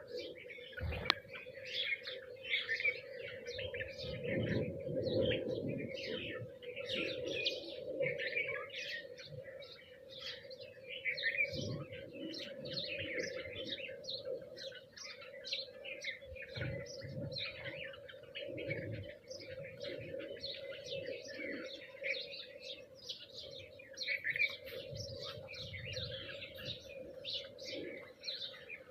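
A flock of sparrows and mynas chirping and chattering, many short calls overlapping without pause, over a steady low hum.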